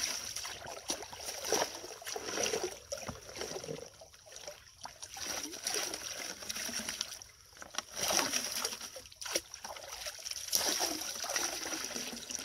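Water sloshing and splashing as a gold pan of dug dirt is worked in water, coming in uneven surges that swell and fade.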